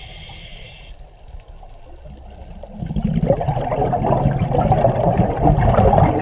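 Bubbling water, air bubbles rising, quiet at first and much louder from about three seconds in. A short high tone sounds in the first second.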